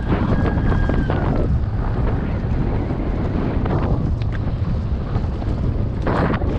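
Wind buffeting the camera microphone as a chainless mountain bike coasts down a rough dirt trail, with tyres running over dirt and gravel and frequent rattling knocks from the bike. A thin high whine fades out about a second and a half in, and a short gritty hiss comes near the end.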